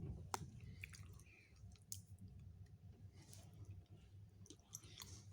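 Faint chewing of chewy cherry licorice candy, with a few soft mouth clicks scattered through it.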